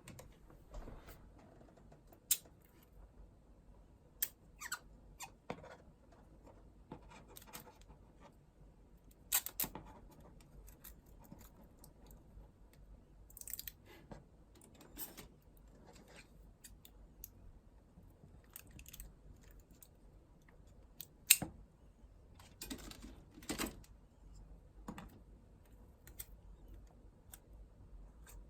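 Irregular small clicks and taps, with a few short rustles, from hands handling small hard objects; the sharpest clicks come about 2, 4, 9 and 21 seconds in.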